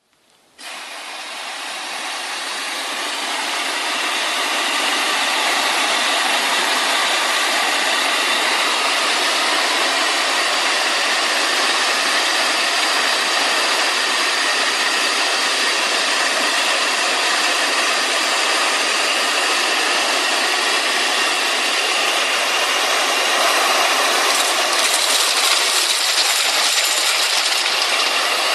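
Compressed-air-driven wet/dry vacuum cleaner running: a steady rush of air that starts about half a second in, builds over the first few seconds, then holds, a little louder near the end.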